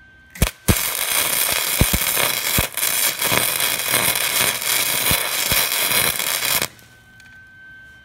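MIG wire-feed welder arc crackling steadily for about six seconds after a short blip, then cutting off sharply. It is laying a build-up weld onto a broken exhaust manifold stud sunk below flush in a Ford modular engine's cylinder head.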